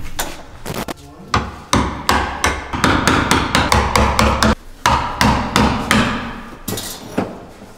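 A hammer striking the wooden ceiling boards at the edge of an attic-hatch opening, a run of sharp blows two to three a second, with a short pause midway.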